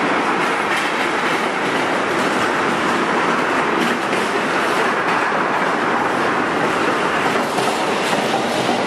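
Container freight train passing close: a steady rumble and rattle of steel wheels on the rails, with the clickety-clack of the wagons' wheels going over rail joints.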